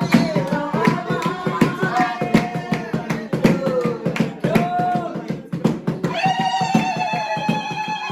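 Music with a singing voice over a steady beat; about six seconds in, the voice holds one long note that slowly falls.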